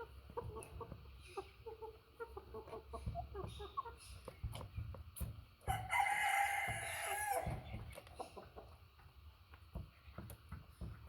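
Chickens clucking in short scattered calls, with a rooster crowing once about six seconds in, a crow lasting about a second and a half that drops in pitch at the end.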